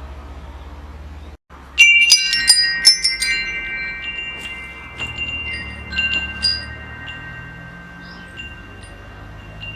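Metal wind chimes jangling: a flurry of strikes about two seconds in whose clear high tones ring on and slowly fade, with a few lighter strikes a little later, over a low steady rumble.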